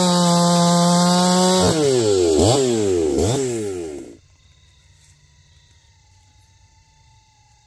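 Ported two-stroke chainsaw engine (Neotec NH872, a Husqvarna 372 clone) revving. It is held at high revs for a moment, drops, blips twice more, and then stops abruptly about four seconds in.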